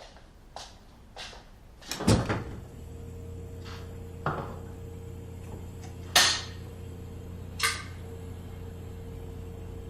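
Several sharp knocks and one heavier thump about two seconds in, like a door or cabinet being bumped. After the thump a low steady hum sets in, broken by a few more knocks.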